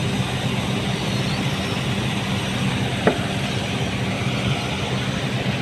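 A heavy diesel engine running steadily, with a short squeak about three seconds in.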